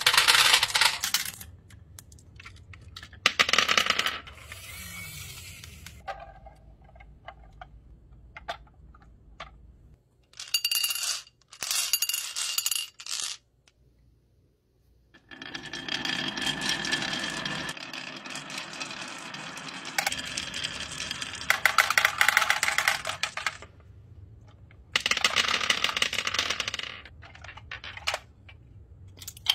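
Many marbles clattering and rolling down a wooden wavy-groove marble-run track and dropping into a plastic toy truck's bin. The clatter comes in several bursts with short pauses between them. The longest runs for over ten seconds in the second half.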